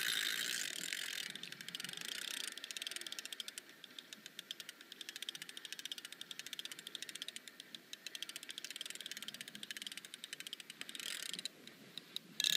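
Spinning reel being cranked to bring in line after a bite, its gears giving a rapid, even clicking that grows fainter after the first few seconds.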